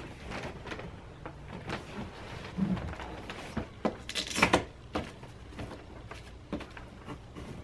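Handling noises from the black fabric-covered hard carry case of a portable photo studio as it is being opened: scattered taps, knocks and rustles, with a cluster of louder sharp clicks about four and a half seconds in.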